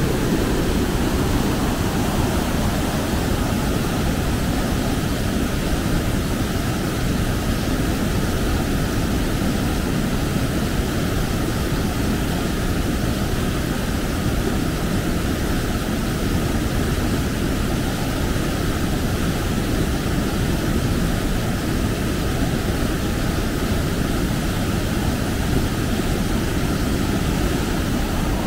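Waterfall and rapids rushing steadily: an even, deep wash of water noise that holds without a break.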